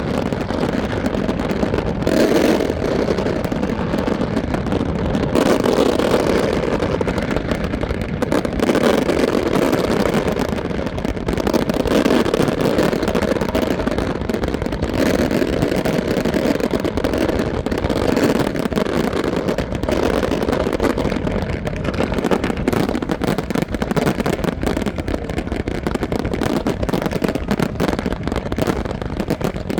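Fireworks barrage: a continuous rumble of many overlapping bangs and crackles.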